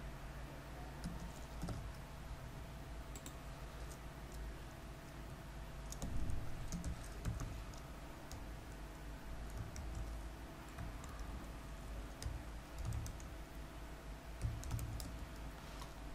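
Typing on a computer keyboard: faint, intermittent keystrokes in short runs, over a steady low hum.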